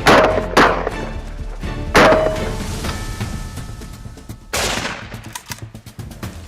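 Four rifle shots, two in quick succession at the start, another about two seconds in and a last one about four and a half seconds in, each followed by a short echo, over background music.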